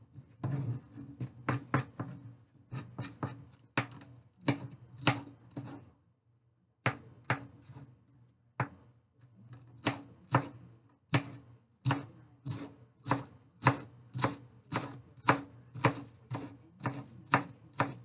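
Chef's knife chopping a green bell pepper on a cutting board: a steady run of sharp knocks, about two to three a second, with a short pause about a third of the way in.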